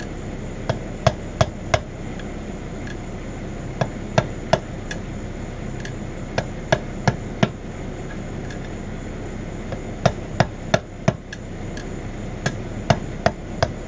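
Hammer striking a pry bar to drive its tip between a tire's bead and the wheel rim to break the bead. Five short runs of three or four sharp blows, about three a second, with pauses between runs.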